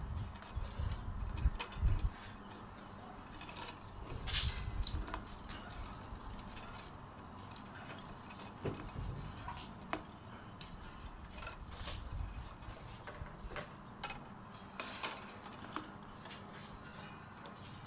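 Thin bamboo strips clicking, scraping and rustling against one another as they are threaded over and under by hand in weaving, in irregular light clicks, with a few dull low thumps in the first few seconds.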